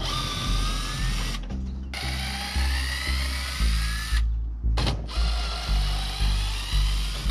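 Cordless drill backing screws out of a masonite panel in three runs of one to two seconds each, its whine rising slightly within each run, with short pauses about a second and a half and four seconds in. Background music with a steady bass beat underneath.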